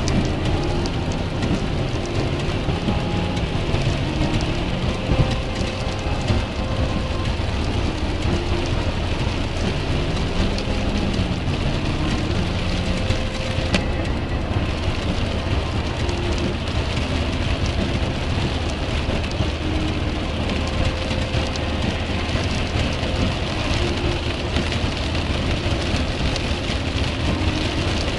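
Steady noise of heavy rain hitting a moving car, with wet-road tyre noise and the engine's low hum, heard from inside the cabin.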